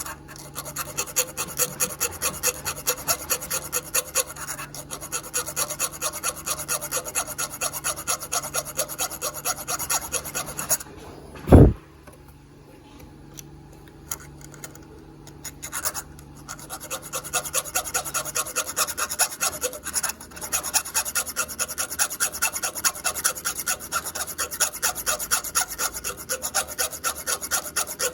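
A small hand file rasping across a copper wire slug set in a nickel pendant, in quick, even strokes, taking material off so the slug is short enough to peen into a rivet. Partway through there is a single loud thump, the strokes stop for about five seconds, then resume.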